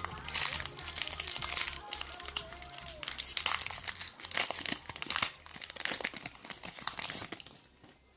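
Foil wrapper of a Pokémon booster pack crinkling and tearing as it is opened by hand, a dense run of crackles that dies away near the end, over faint background music.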